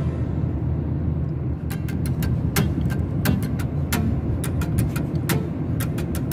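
Steady low road rumble of a moving car, heard from inside the cabin, with sharp clicks at uneven spacing throughout.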